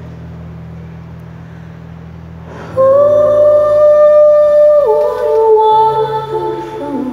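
Live band music: a soft sustained low bass chord, then about three seconds in a female voice comes in loud with a long held note. The note steps down partway through and slides lower near the end.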